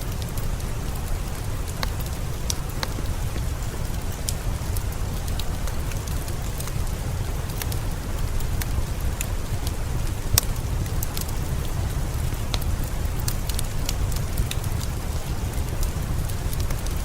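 Steady rain with a low rumble, mixed with the scattered sharp pops of a crackling fireplace; one pop about ten seconds in is louder than the rest.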